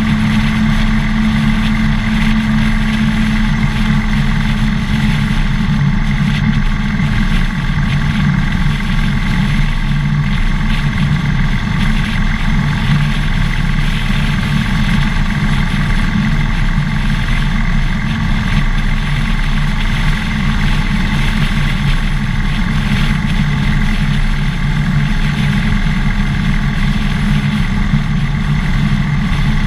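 Harley-Davidson Dyna Fat Bob's V-twin engine running steadily, picked up by a camera mounted on the motorcycle itself.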